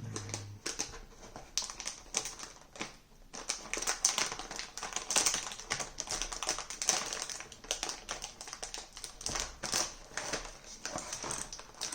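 Keys of a Logitech G512 mechanical keyboard with clicky blue switches being pressed in quick, irregular clatters, sparse at first and then dense from about three seconds in.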